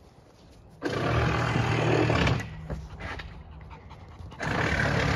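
Puppy panting hard close to the microphone, in two spells: one of about a second and a half, then another of about a second near the end.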